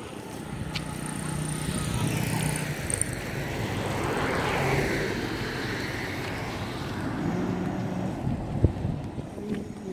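A motor vehicle driving past: its noise swells to a peak about halfway through and then fades. A single sharp knock near the end.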